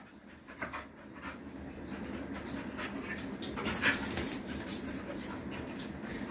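A Rottweiler panting while playing, with a few light clicks and knocks from its movement and one brief, louder noisy burst about four seconds in.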